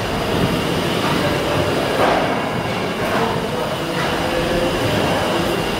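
Victorian steam beam pumping engine running under steam, a steady mechanical clatter and hiss that swells rhythmically about once a second with the motion of its valve gear.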